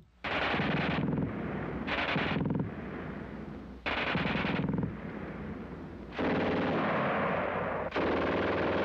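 German MG42 machine gun firing in bursts of very rapid fire, about five in a row with short gaps between them. The later bursts are longer.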